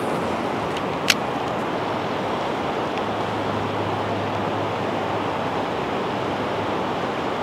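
River water rushing steadily, with a single sharp click about a second in.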